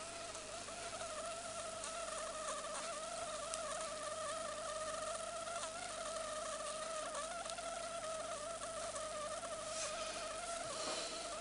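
Juices of a freshly roasted pork roast sizzling: a steady, slightly wavering high whine like a buzzing insect, over a light hiss with faint crackles.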